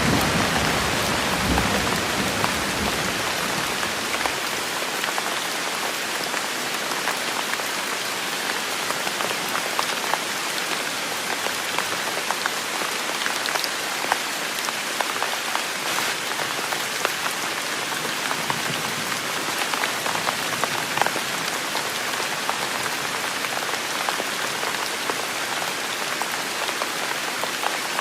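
Steady heavy rain, a dense hiss with individual drops ticking through it. A low rumble dies away over the first few seconds.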